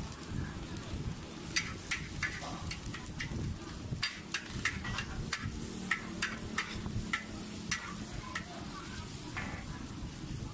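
Metal spatula scraping and clanking against a wok while char koay teow is stir-fried: sharp strikes, about two or three a second, starting about a second and a half in and stopping near the end, over a steady low rumble.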